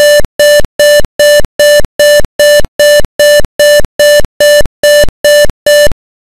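Simulated buzzer of a PIC microcontroller simulator beeping an alarm: fifteen short, buzzy, mid-pitched beeps at about two and a half a second, stopping near the end. It is the voltmeter-ammeter's over-limit alarm, set off by the voltage going above its preset value.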